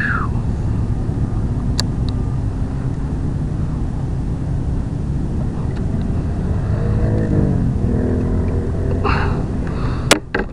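Steady low rumble of wind buffeting the camera microphone, with a few sharp knocks of gear on the kayak, the loudest near the end.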